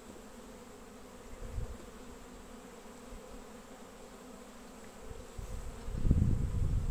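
Honeybees buzzing in a steady hum over an open hive. Near the end, louder low thumps and rustling come in over the buzz.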